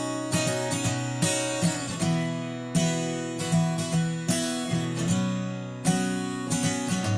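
Acoustic guitar strumming chords in an even rhythm over sustained backing, the instrumental intro of a pop ballad before the vocals come in.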